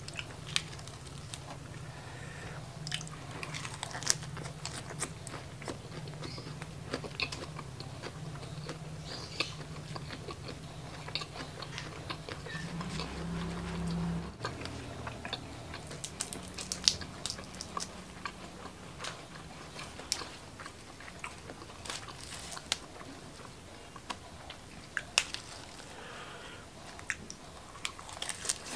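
A person biting and chewing spicy shrimp wrapped in curly lettuce with chili sambal, close to the microphone: many sharp crunches and mouth clicks at an irregular pace.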